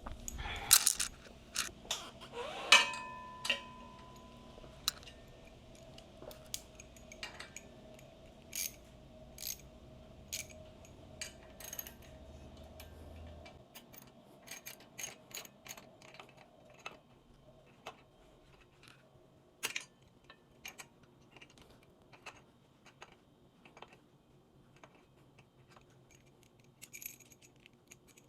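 Hand tools and small metal parts clicking, tapping and clinking at irregular intervals during motorcycle disassembly, with one louder metallic clink that rings briefly about three seconds in. A faint low hum stops about halfway through.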